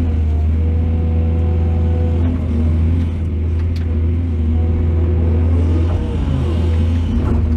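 Excavator's diesel engine running steadily under work, a continuous low drone.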